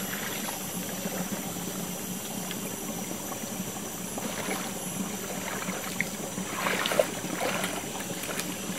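Shallow stream running over rocks, with splashing as a person wades through the water toward the microphone; the splashes grow louder near the end, with one sharp splash about seven seconds in.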